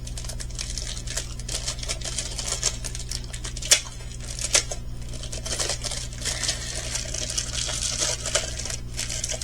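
Small plastic bags of diamond-painting pearls being handled and rustled, with light clicks and one sharper tap a little under four seconds in. A steady low hum runs underneath.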